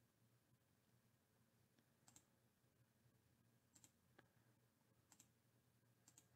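Faint computer mouse clicks, about five spread a second or so apart, some in quick pairs, over near silence.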